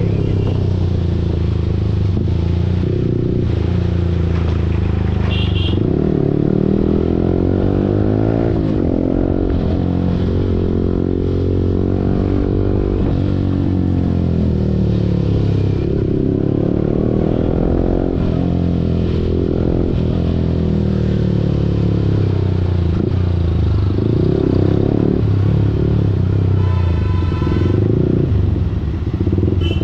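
Yamaha R15 V4's single-cylinder engine through an Akrapovic full-system exhaust, riding in traffic: the revs climb and drop again and again as it accelerates and shifts, between stretches of steady running.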